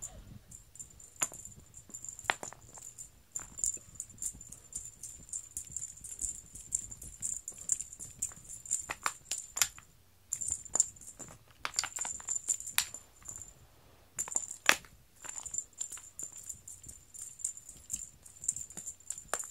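A cat-teaser wand's toy being flicked and dragged across a foam floor mat, giving quick irregular clicks and rattles over a thin high ring, with a few brief pauses.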